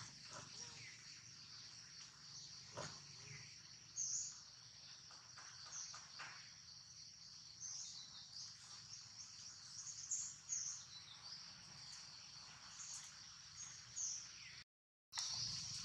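Steady, high-pitched drone of insects, with short high chirps scattered through it. The sound cuts out completely for a moment near the end.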